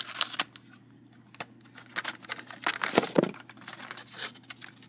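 Packing material inside a cardboard shipping box being rustled and torn by hand as the contents are pulled out. It comes in short, irregular bursts, with a pause of about a second and a half early on before the rustling resumes.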